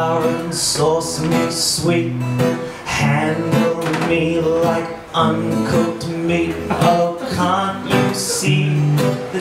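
Acoustic guitar strummed in a steady rhythm while a man sings along.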